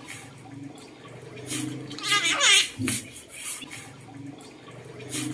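Red-breasted parakeet calling in mimicked human speech, the way its owner calls the dog: a warbling run of calls with quick wavering pitch and falling glides from about a second and a half to three seconds in.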